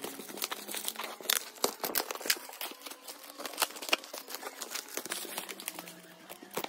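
Black plastic parcel wrapping and packing tape being torn open and pulled off a cardboard box, crinkling with many irregular sharp crackles.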